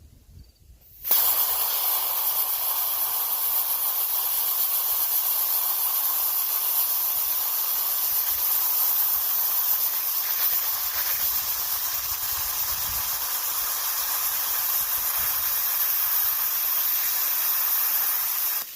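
Dual-voltage hand-held plasma cutter cutting through 3/8-inch steel plate: a loud, steady hiss of the arc and air jet that starts suddenly about a second in and cuts off just before the end.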